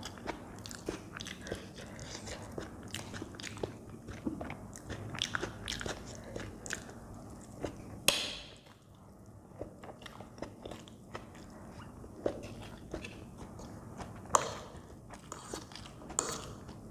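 Close-miked eating of soft Maggi instant noodles: wet chewing and lip-smacking clicks, with a loud slurp of noodles about eight seconds in and another sharp sound near the end.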